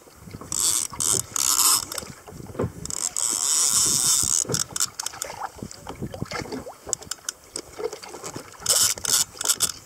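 Multiplier fishing reel's ratchet clicking in bursts, with a longer steady rasp a few seconds in, as a hooked tope pulls on the line.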